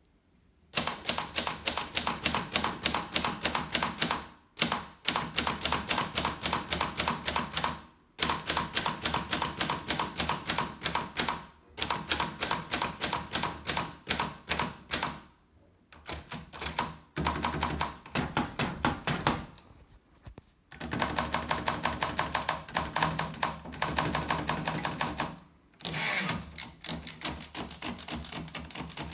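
Groma Kolibri manual portable typewriter being typed on: runs of rapid key strikes broken by short pauses every few seconds, with two brief high ringing tones in the second half.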